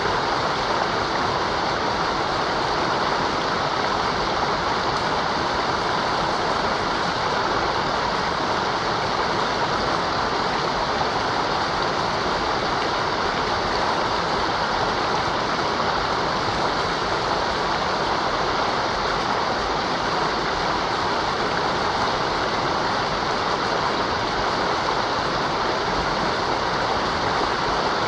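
Mountain river rushing over rocks: a steady, unbroken roar of running water.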